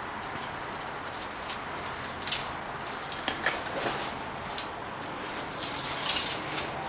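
Hand work on a tractor's temperature-gauge sender fitting: a few sharp clicks, most of them between two and four seconds in, over a steady low hiss.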